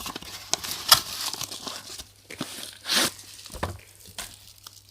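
Packaging of a toy train being handled and opened: irregular tearing and crinkling of paper or plastic wrapping, with a few sharper snaps.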